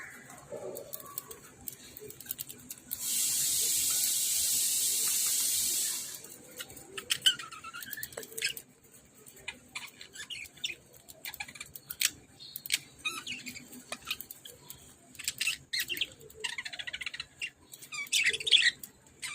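Budgerigars chirping and chattering in short, warbling calls, with scattered sharp clicks. A loud, steady hiss lasts about three seconds, starting a few seconds in.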